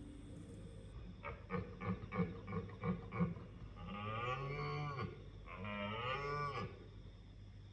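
Red deer stag roaring in the rut: a quick run of short grunts, then two long, drawn-out roars that rise and fall in pitch.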